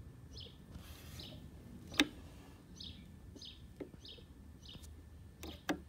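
Camera shutter clicks: one sharp click about two seconds in and two more close together near the end. Under them, a faint high chirp repeats every half second or so.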